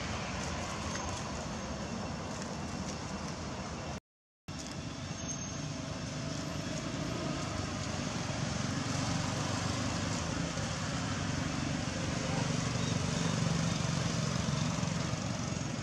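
Steady outdoor background noise, a low rumble with hiss like distant road traffic, swelling slightly after about ten seconds. The sound drops out completely for a moment about four seconds in.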